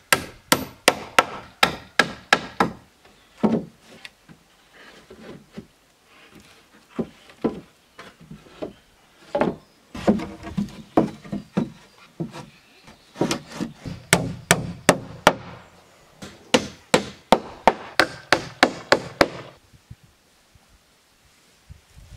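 Wood being struck repeatedly with a hand tool, in quick runs of blows about two to three a second with short pauses between runs; the blows stop near the end.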